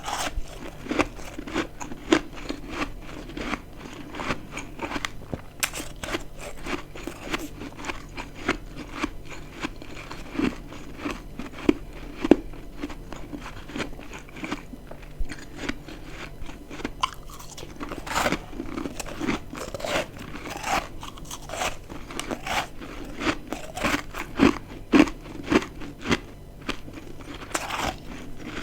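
Close-miked chewing of dry, crispy freezer frost chunks: dense, irregular crunching with sharper bites here and there.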